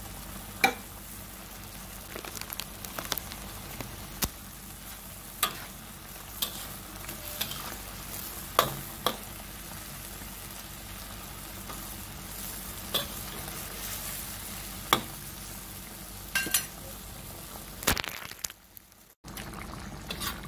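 Chicken curry sauce simmering in a wok with a steady sizzle, while a metal spatula stirs it and knocks against the pan in scattered sharp clicks. The sound cuts out briefly near the end.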